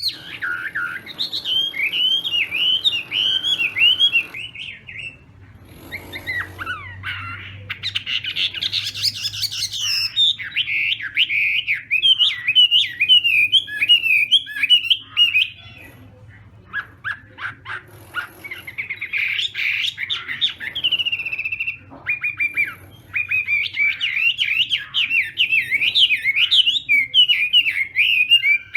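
Chinese hwamei singing a loud, fast song of varied whistled phrases and rapid trills. It comes in long runs, with short breaks about 5 s in, around 16 s and around 22 s.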